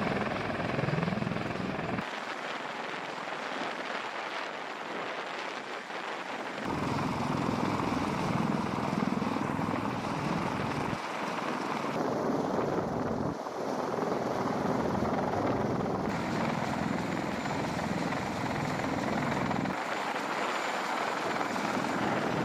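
CH-53E Super Stallion heavy-lift helicopter running, a dense rush of rotor and turbine noise. The sound shifts abruptly several times, the low rumble dropping out and coming back.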